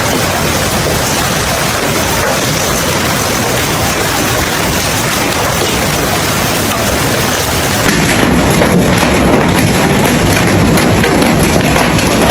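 Hail and heavy rain pelting down in a loud, dense patter of hits. About eight seconds in it turns a little louder, with more distinct sharp hits.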